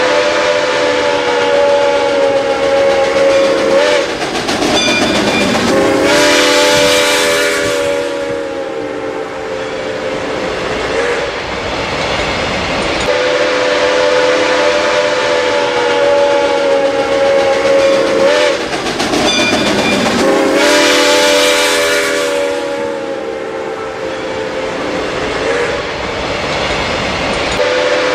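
Steam locomotive whistle blowing a series of long chord blasts, each several seconds, over the running of a moving train, with loud bursts of hissing steam between blasts. The same sequence of blasts and hiss plays twice.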